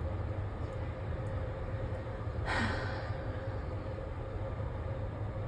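Steady low hum of background recording noise, with a single breathy sigh about two and a half seconds in and a few faint clicks.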